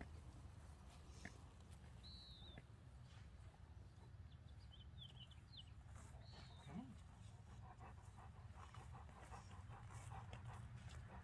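Near silence: faint outdoor ambience with a steady low rumble, a short high chirp about every four seconds with a few tiny chirps between, and faint rustling near the end.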